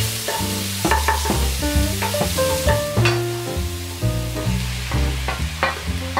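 Minced garlic sizzling in hot oil in a nonstick wok, stirred with a wooden spoon, under background music with a steady bass line.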